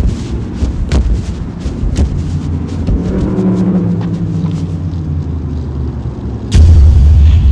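Low rumble of wind buffeting the microphone, with a few light clicks, then a sudden much louder low blast of wind noise lasting about a second near the end.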